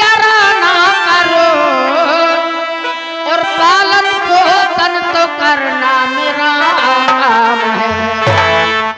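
Nautanki stage music: a wavering, ornamented melody line over a steady held drone, with a low drum-like stroke near the end.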